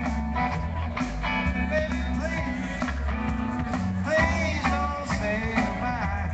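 Live band playing rock music with electric guitar and singing over a steady bass line, picked up from out in the audience on a phone's microphone.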